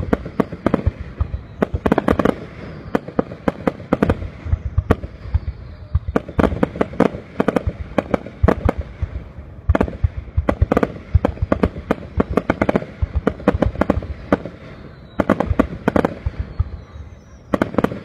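Aerial fireworks shells bursting overhead, a steady barrage of sharp bangs in quick runs with only brief lulls between them.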